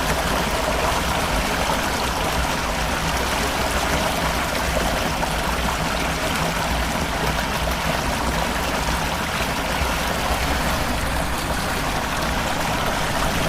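Floodwater running fast, a steady unbroken rush of water.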